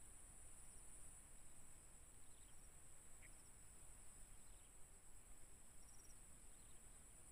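Near silence: a faint, steady high-pitched insect trill, with a few faint short chirps scattered through it.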